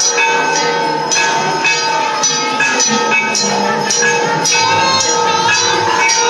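Temple bells ringing during aarti, struck over and over in a fast, even rhythm, with one long held tone sounding over them.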